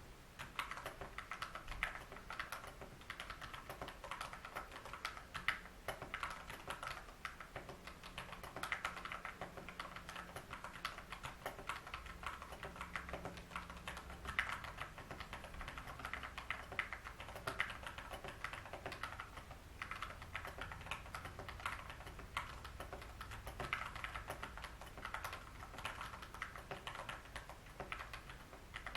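Continuous typing on a Vortex Pok3r 60% mechanical keyboard with Cherry MX Brown tactile switches lubed with SW-92SA grease: a dense, uneven stream of key clacks.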